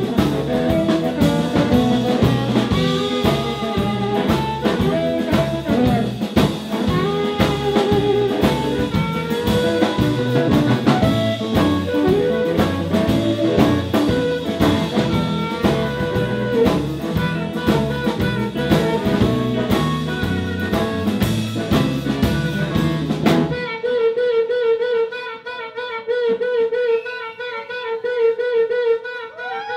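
Live electric blues band: an amplified harmonica cupped to a microphone, over electric guitars and a drum kit. About 23 seconds in, the full band cuts off abruptly and the harmonica carries on almost alone, holding one wavering note.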